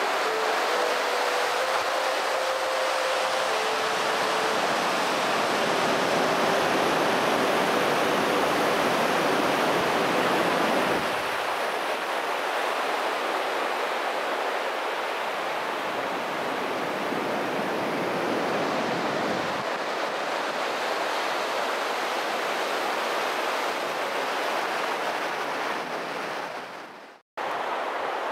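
River water rushing below, a steady wideband noise that eases a little about eleven seconds in and drops out for a moment near the end.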